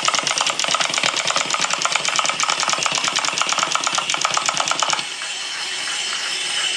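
Clockwork wind-up toys, a set of chattering teeth and a walking robot, whirring with a fast, even clicking as their springs unwind. About five seconds in the clicking gives way to a finer, steadier whir.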